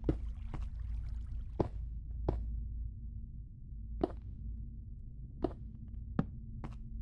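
A series of about eight sharp, irregularly spaced knocks over a low steady hum.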